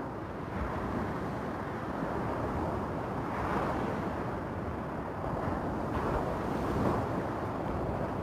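Sea surf breaking and washing onto a beach of rounded stones, a steady rush that swells louder about a third of the way in and again past the middle as waves come in.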